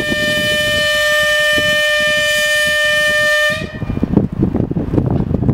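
2M62U diesel locomotive's horn sounding one long, steady signal that cuts off about three and a half seconds in, the departure signal. Afterwards, gusts of wind buffet the microphone over a low rumble.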